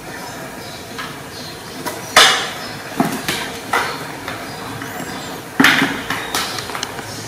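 Irregular sharp knocks and clatters of a kitten pawing and climbing at a gold-coloured footed pedestal tray holding a phone. The two loudest hits come about two seconds in and about five and a half seconds in, with smaller taps between.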